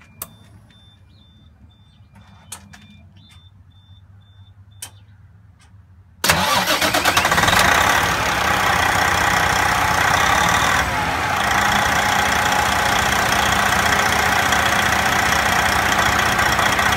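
Detroit Diesel heavy-truck engine starting about six seconds in, briefly loud, then settling into a steady idle: the first start after a fuel filter change. Before it, a few clicks and a faint repeating beep.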